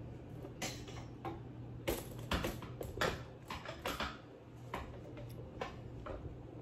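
Handling noise from a phone camera on a tripod being moved: irregular light clicks and knocks over a steady low hum.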